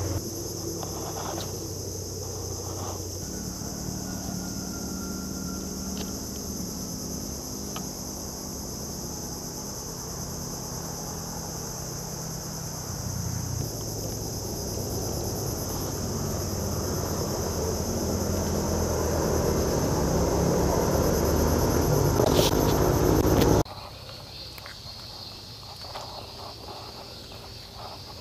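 Insects buzzing steadily in a high-pitched chorus over a low rumble that grows louder. Both drop away suddenly about 23 seconds in, leaving a quieter insect hum.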